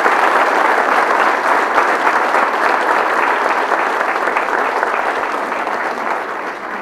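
A large audience applauding at the end of a speech, dense steady clapping that eases slightly near the end.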